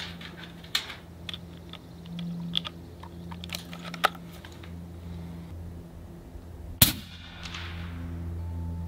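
A few light clicks as the air rifle is handled, then a single sharp shot from the Gauntlet 30 PCP air rifle about seven seconds in, with a short fading echo after it.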